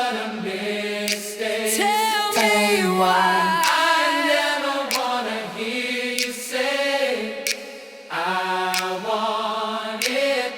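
Layered, choir-like vocals singing a cappella in a pop song, dipping briefly about eight seconds in before coming back.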